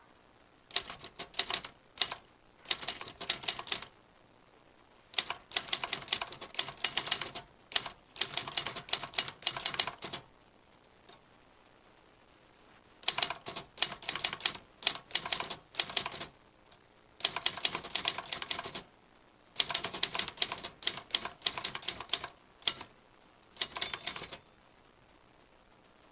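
Typewriter being typed on: fast runs of sharp key clacks, each run lasting a few seconds, broken by short pauses.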